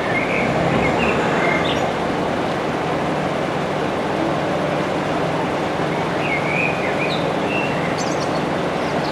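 Steady vehicle rumble, with a small bird chirping briefly near the start and again about six seconds in.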